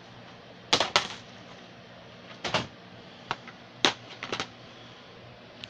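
Plastic DVD cases clacking against each other as they are handled and stacked: a handful of short, sharp clicks at uneven intervals.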